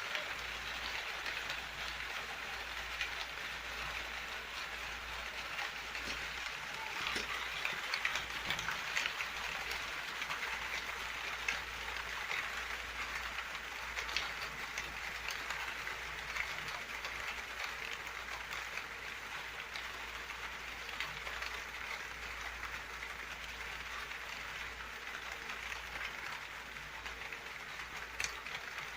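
Steady rain falling: a dense, even hiss of drops with scattered sharper drop ticks.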